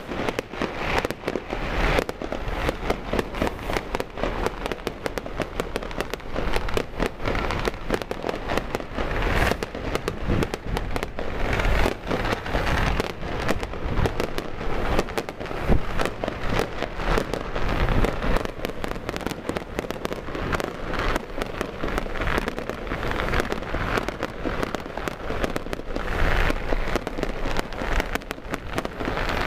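Strings of firecrackers popping in a dense, continuous crackle of rapid sharp bangs that keeps up throughout.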